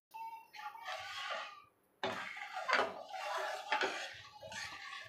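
A metal ladle scraping and swishing round a stainless steel pan, stirring a thin urad dal batter continuously over the heat so it cooks without lumps. There is a short pause about two seconds in and a couple of sharper clinks of ladle on pan.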